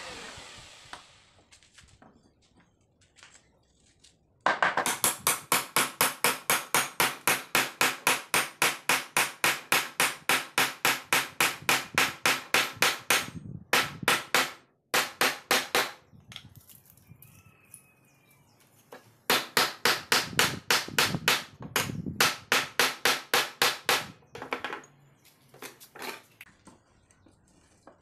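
Hammer blows in quick succession, about four a second, while a wood chisel is being repaired: a run of about nine seconds, then after a pause a shorter run of about five seconds, each blow a sharp strike.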